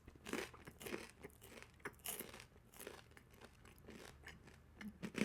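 Close-up eating: bites and chewing of a crisp wafer-cone chocolate-and-cream dessert, giving irregular crisp crunches.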